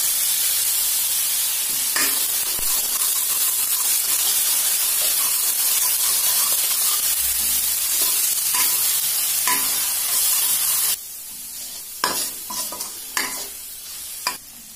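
Ground onion and ginger-garlic paste sizzling steadily in hot oil in a stainless steel pan, with a steel spoon clinking and scraping against the pan as it is stirred. The sizzle cuts off suddenly about eleven seconds in, leaving a few separate knocks.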